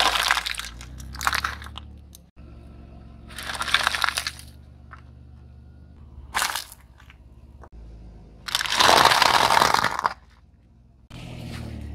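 Car tyre rolling onto things and crushing them, in several separate crunching bursts over a low steady hum. Hollow plastic toy shells crack under the tyre at the start. A long crunch about nine seconds in comes from a foil tray of wafer ice-cream cones being flattened.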